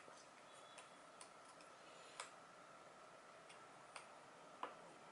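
Faint clicks and taps from a small USB-C hub being handled and its plug pushed into an iPad Pro's USB-C port, a handful of separate ticks over near-silent room tone.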